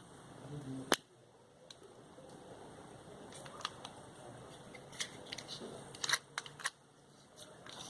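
Knife blade clicking and scraping against the metal casing of a 9-volt battery as it is pried open: a sharp click about a second in, then scattered clicks.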